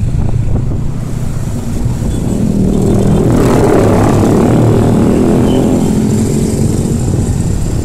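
Motor scooter engines running in slow road traffic, with a low wind rumble on the microphone. From about three seconds in, an engine hum with several steady pitches grows louder for a few seconds, then eases.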